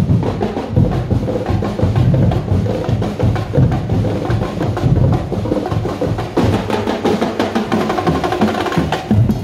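Parade drum ensemble of a festival tribe playing a loud, fast, driving rhythm on many drums, the strokes packed closely together without a break.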